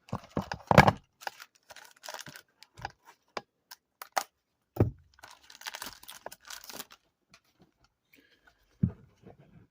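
Trading cards and their plastic packaging being handled: crinkling rustles and small clicks and taps, coming in a few short spells.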